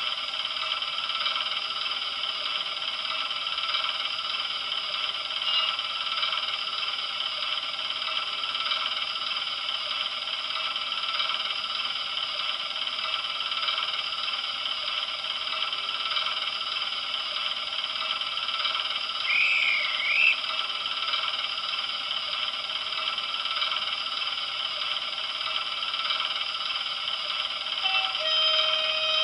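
A sound-fitted OO gauge model of a Class 128 parcels diesel unit idling: a recorded diesel engine sound played from its decoder through a small onboard speaker, steady and thin with little bass. A brief wavering chirp comes about two-thirds through, and a few short tones near the end.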